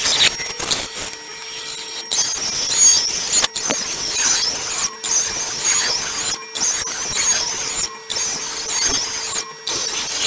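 Laguna iQ CNC router spindle whining at a high pitch while a 1/8-inch compression end mill cuts hinge pin holes in cherry. The pitch wavers as the bit moves through the cut, and short gaps break the sound every second or so.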